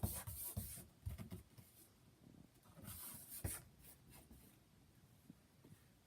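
Scratching and rubbing noises in two short bouts, one at the start and one about three seconds in, with a few soft knocks, then faint scattered ticks.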